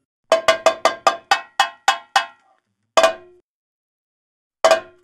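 Small metal percussion instrument struck with a stick, each stroke ringing briefly with a bell-like tone. A quick run of about nine strokes comes first, then two single strokes more than a second apart.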